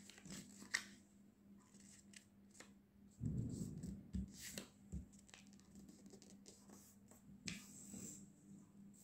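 A sheet of A4 paper being folded and creased by hand on a tabletop: soft rustles, crinkles and small clicks, with the loudest, duller rubbing about three seconds in as the fold is pressed flat.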